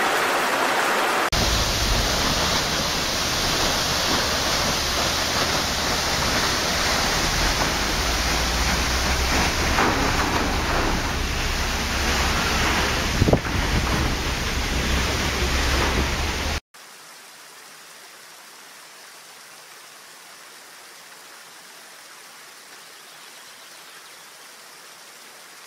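Rushing water of a waterfall, a steady noise with a deep rumble underneath, changing abruptly about a second in where one recording is cut to another, with a brief knock around thirteen seconds in. About seventeen seconds in it cuts suddenly to a much quieter, thinner steady hiss of water.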